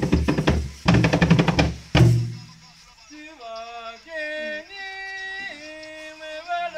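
Loud, fast drumming that stops with a final stroke about two seconds in. A single voice then sings long held notes that step from pitch to pitch.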